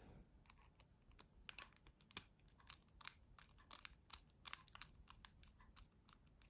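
Faint, irregular small clicks and ticks of a precision screwdriver driving screws into a Nokia 6700 Classic's housing.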